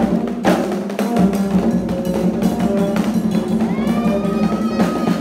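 Drum-led music for Haitian folkloric dance, with a steady pattern of strikes. About three and a half seconds in, a high tone slides upward and holds.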